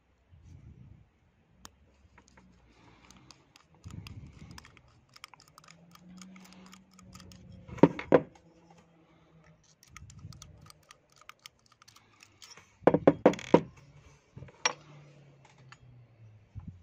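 Small metal parts of a moped carburettor clicking and tapping as it is taken apart by hand: a screwdriver working out a brass jet and small jets set down on the table. A few louder, sharp metal clacks come about halfway through and again a few seconds later.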